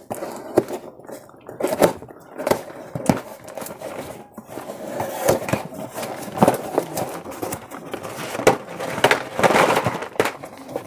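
A cardboard shipping carton being opened by hand: packing tape cut and peeled, cardboard flaps pulled back, then card-backed plastic blister packs of pens rustling and knocking together. The sound is an irregular run of crackles, scrapes and sharp knocks.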